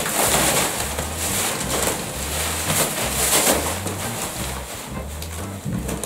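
Clear plastic wrapping being pulled and crumpled off a new mattress: dense crinkling and crackling, with low repeating bass notes underneath.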